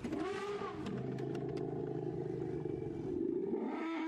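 Vehicle engine running steadily, its sound shifting about three and a half seconds in.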